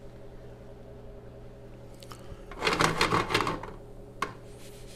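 A steady low hum, then a loud clatter of about a second, a little past halfway, as a nonstick frying pan is handled on a portable gas stove.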